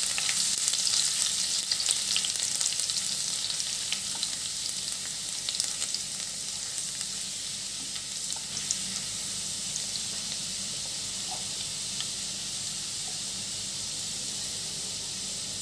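Finely chopped garlic sizzling in hot oil in a frying pan, a steady high hiss that is a little louder in the first few seconds and then settles. A wooden spatula stirs it, with occasional faint taps and scrapes.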